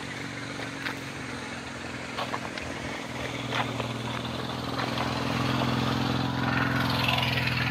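A motor vehicle engine running with a steady low hum. It swells louder from about halfway through and stays loud to near the end. There are a few light knocks in the first half.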